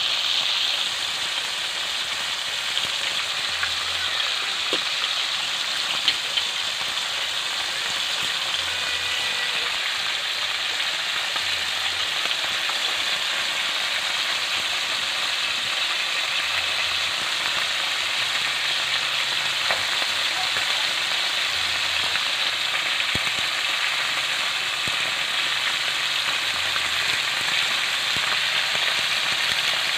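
Needlefish and squid pieces frying in hot oil in a wok: a steady sizzling hiss with a few small pops of spattering oil.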